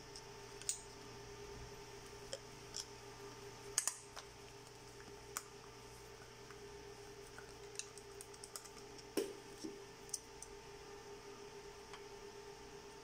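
Irregular light clicks and taps of a plastic-bracketed battery pack and screwdriver being handled, loudest about four seconds in and again around nine seconds, over a steady faint electrical hum.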